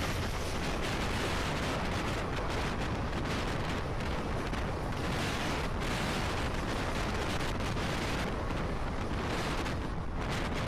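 Loud, steady rushing rumble of two passenger trains crossing at speed, heard from the open doorway of one of them: wheels on rail and wind as the other train's coaches pass close on the adjacent track. The hiss thins near the end as the last coach goes by.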